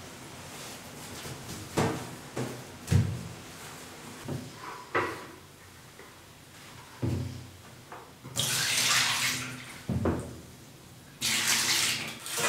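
Water poured from a bucket splashing into a bathtub to rinse it, in two pours in the second half. A few dull knocks come before.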